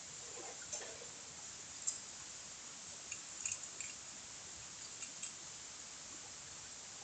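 A few short clicks and light knocks of small camp cooking gear being handled, over a steady hiss.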